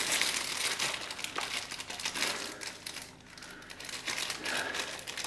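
Thin clear plastic packaging bag crinkling as fingers pick and pull at it, trying to get it open. Irregular crackling, louder in the first half, easing off about three seconds in and then picking up again more faintly.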